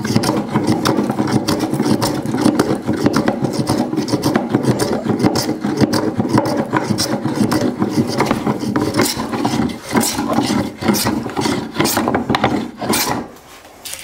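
Hand rasp filing the edge of an oak board in quick repeated strokes, taking one high end down toward a marked width line. The strokes stop about a second before the end.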